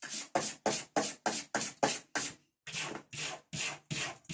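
A cat scratching at a wall with its paws: a steady run of short scraping strokes, about four a second, with a brief pause about halfway through.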